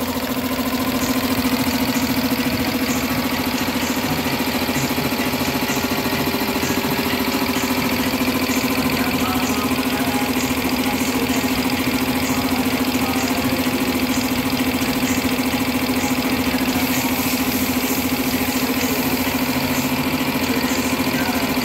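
Two-cylinder V-type piston air compressor with a 3 HP single-phase electric motor running steadily, with a constant hum.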